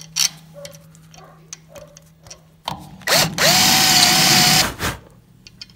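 Light metal clicks as a screw is dropped into a countersunk hole in an aluminum rail to check that it sits flush, then about three seconds in a drill spins up with a rising whine and runs a half-inch countersink bit into the aluminum for under two seconds before stopping.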